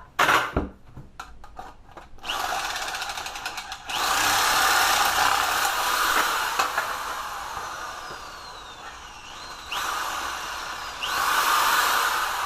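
A handheld power tool running in long spells, its pitch shifting as it works. It starts about two seconds in, runs hardest for the next few seconds, eases off, then picks up again near the end.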